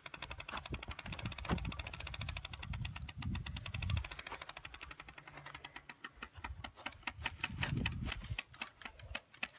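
Playing card held by a clothespin on a bicycle frame, flicked by the turning wheel's spokes as the bike is ridden: a rapid, steady clatter of clicks meant to imitate a motorcycle engine.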